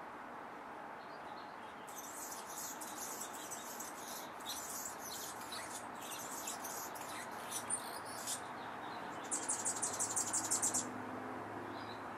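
Hummingbird calling: high-pitched scratchy chips and twitters, ending in a quick run of about ten sharp chips.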